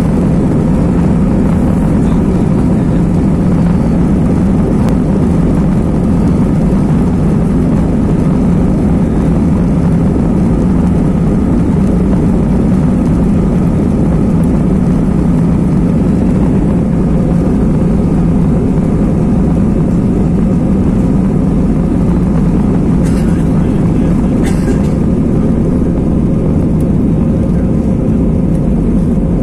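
Jet airliner engines at takeoff thrust as heard inside the cabin: a loud, steady, deep roar through the takeoff roll and liftoff. Two brief faint clicks about three-quarters of the way through.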